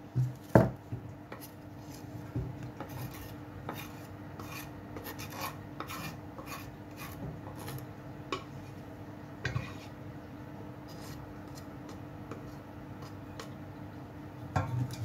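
Knife blade scraping chopped vegetables off a wooden cutting board into a stainless steel pot: a run of short scrapes and taps after a knock about half a second in, thinning out after about ten seconds.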